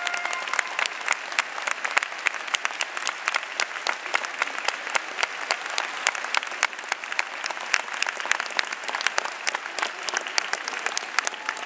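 Ice-rink audience applauding after the performance, with many separate sharp claps standing out.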